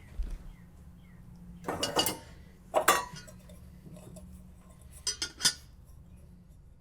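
Metal dishes and utensils clinking and clattering in three short bursts, with ringing after each.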